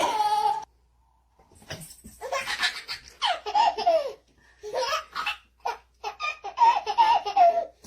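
A baby laughing hard in repeated belly-laugh bouts, after a short pause about a second in.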